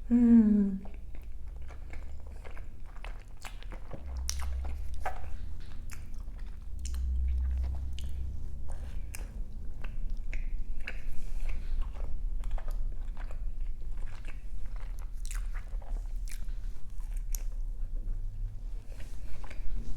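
Close-miked biting and chewing of crunchy food, full of crisp crackles and wet mouth clicks. A brief falling hum of a voice comes at the very start.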